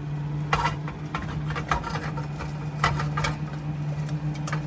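A knife cutting through a crisp pan-fried pizza in a frying pan: a handful of irregular crunching, scraping strokes as the blade slices the crust and scrapes the pan.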